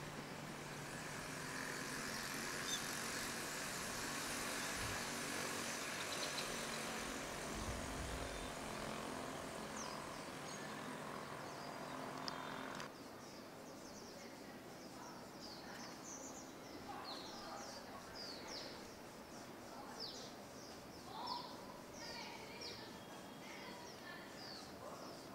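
Outdoor ambience with a steady low background hum, dropping to a quieter bed about halfway. Through the second half small birds chirp over and over in short, quick calls.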